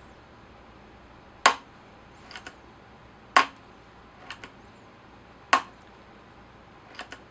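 KalibrGun Cricket PCP air rifle trigger mechanism being cocked and released by hand three times, testing a light 'hair trigger' second-stage sear setting. Each release is a sharp metallic snap, about two seconds apart, and each is followed by a pair of light clicks as the mechanism is cocked again and the sear latches.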